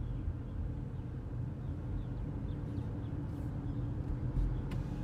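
Steady low rumble of a car driving at street speed, heard from inside the car: engine hum and tyre noise, with a faint click near the end.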